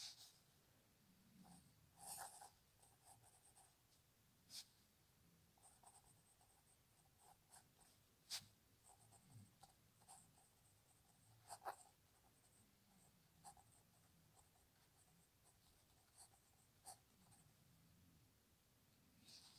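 Faint scratching of a pen nib on paper as handwriting is written, in short strokes with pauses between words, with a few sharper ticks.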